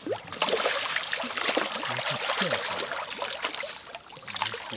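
Koi thrashing and splashing in pond water during a net harvest, a dense run of splashes that eases briefly about four seconds in.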